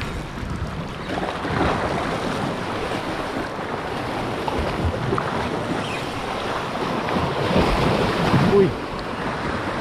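Sea surf washing steadily against a rocky shore, with wind noise on the microphone.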